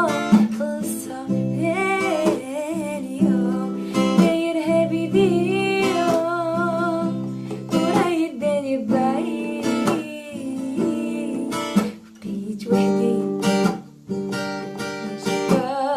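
Music: a song sung by one voice over a strummed, guitar-like plucked string instrument.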